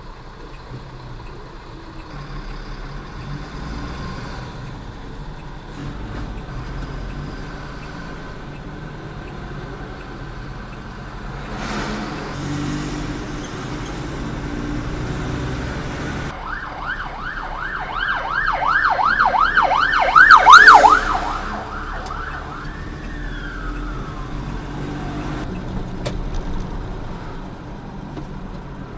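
Emergency vehicle siren in fast yelp mode, rising and falling several times a second for about four seconds and loudest near its end, then winding down in one long falling tone. It is heard from inside a truck cab over the truck's steady road and engine noise.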